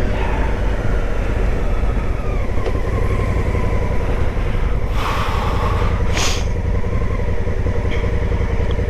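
Big adventure motorcycle's engine running steadily at low trail speed, with two brief rushes of noise about five and six seconds in.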